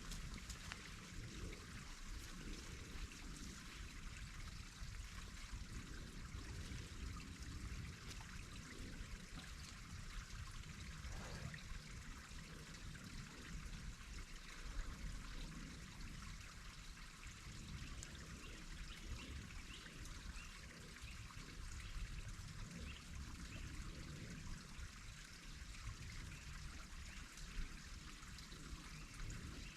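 Faint, steady outdoor background noise: a low rumble under an even hiss, like trickling water.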